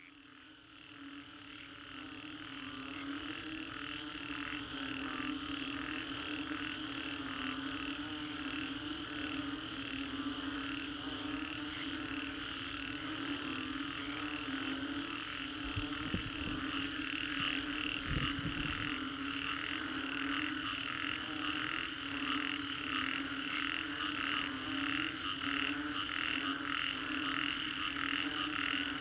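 A chorus of many frogs calling after a storm: a steady low band of calls under a higher chorus of fast, evenly repeated pulses. It fades in over the first few seconds, with two short low thumps around the middle.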